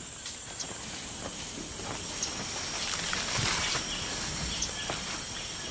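Tropical jungle ambience: a steady high-pitched insect drone with a second, lower insect tone joining about halfway, over a soft noise bed with scattered small clicks and brief faint chirps.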